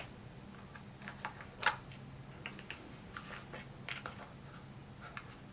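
Scattered light clicks and taps of small hand tools being picked up and handled on a workbench, with one sharper click about a second and a half in, over a steady low hum.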